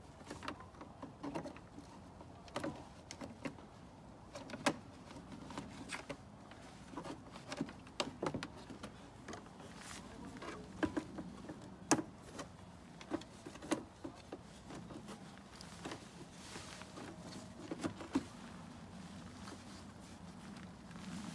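Irregular plastic clicks and knocks as the air filter housings and the plastic engine cover are handled and pushed back into place on a car engine, with the engine off.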